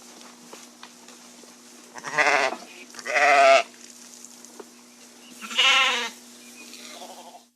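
Sheep bleating: three loud, wavering bleats, two back to back about two seconds in and a third near six seconds, over a steady faint hum.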